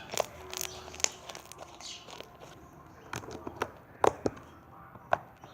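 Slime being mixed, giving irregular sticky clicks and snaps, the loudest about four seconds in.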